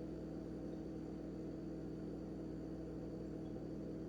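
A steady hum of several held tones, unchanging throughout, over faint hiss.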